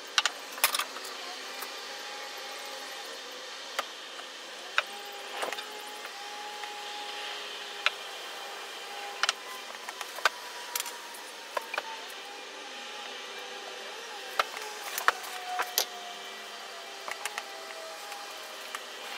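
Wooden parts being handled and set down on a wooden workbench: scattered sharp knocks and clicks, irregular, every second or two, over a steady background hum.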